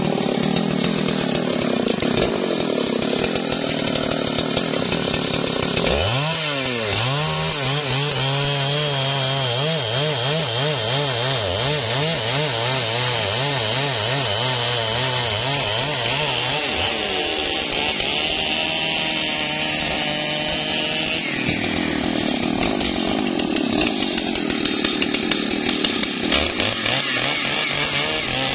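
Large two-stroke chainsaw cutting through the thick trunk of a felled trembesi tree at full throttle. Its engine pitch sags and wavers under load for about ten seconds as the chain bites into the wood, then picks up again, with another dip near the end.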